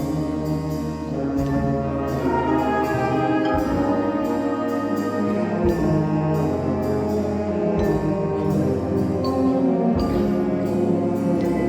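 High school symphonic band playing a Christmas arrangement, brass to the fore over a held bass line, with light percussion strokes keeping a steady beat.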